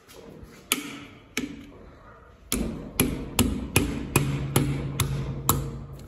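Repeated sharp knocks on a tractor's rear tail-lamp and fender-light fitting. Two single knocks come first, then a quick run of about eight at two or three a second, with a low steady hum under the later ones.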